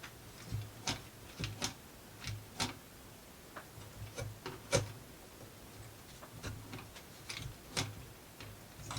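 Irregular light clicks and taps of wooden model parts being handled and fitted together, about a dozen small knocks spread unevenly.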